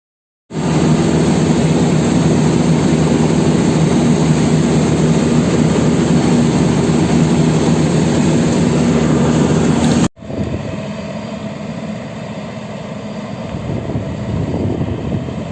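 Rice combine harvester running with a loud, steady engine drone, starting abruptly half a second in; a sudden cut about ten seconds in leaves a quieter, steady machine noise.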